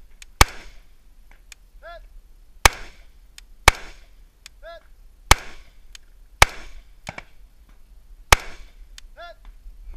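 Rifle fired six times in slow, deliberate shots about one to two seconds apart. A faint ringing tone follows three of the shots.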